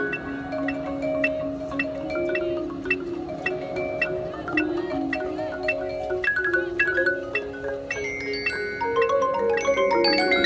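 Marching band front ensemble playing a melody on mallet percussion. Held notes step up and down over a steady tick two or three times a second, and the line climbs near the end.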